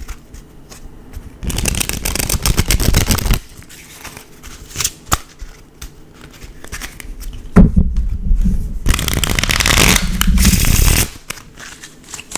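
A deck of playing cards being shuffled: two runs of rapid fluttering clicks, the second longer and opening with a sharper knock, with a few light taps and clicks between them.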